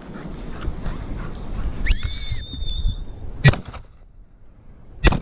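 A dog whistle blown once, a short shrill high note about two seconds in. It is followed by two sharp knocks about a second and a half apart, over the rustle of walking through dry tussock grass.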